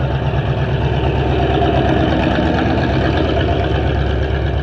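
Cadillac demolition derby car's engine running at low speed close by, with a steady low pulse from its firing.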